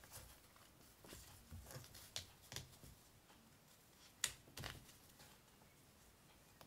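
Faint rustling of paper and fabric, with scattered small ticks as a seam ripper picks out the stitches of a paper-pieced seam; one sharper click about four seconds in.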